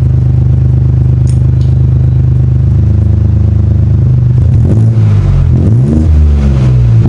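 BMW 118i F40's turbocharged three-cylinder engine idling through a freshly fitted cat-back exhaust with the muffler removed. About four seconds in, the throttle is blipped several times and the revs rise and fall. The new exhaust is a little louder than the owner wants.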